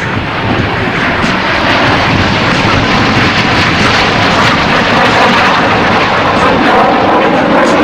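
Snowbirds' CT-114 Tutor jets in flight: a loud, steady rush of jet engine noise that builds slightly as they close in.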